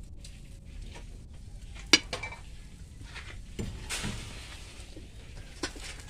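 Clinks and knocks of a metal cooking pot and its lid on an open wood fire, the sharpest about two seconds in, over a low steady background.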